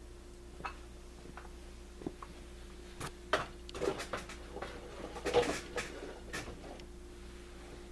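A cluster of clicks, knocks and plastic clatter as the Poulan Pro chainsaw's carrying case is opened and the saw is handled out of it, over a steady faint hum; no engine is running.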